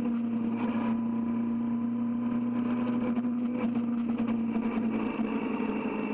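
Kawasaki Z1000R's inline-four engine running at a steady cruising pitch on the move, under a faint hiss of wind and road noise.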